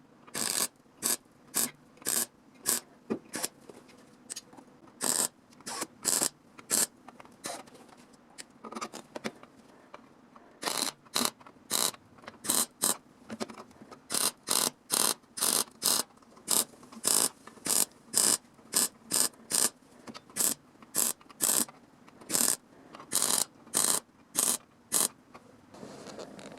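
A hand tool works back and forth on the metal bulge of a Nissan Moco's exhaust front pipe, cutting it open: a run of short scraping strokes at about two a second, with a few brief pauses.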